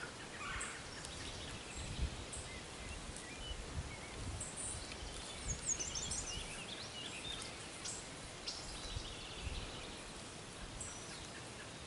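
A wild turkey gobbles faintly once, about half a second in. Small songbirds chirp throughout, and there are a few soft knocks.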